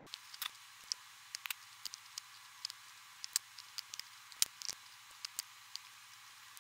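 Typing on a computer keyboard: faint, irregular key clicks, a few a second.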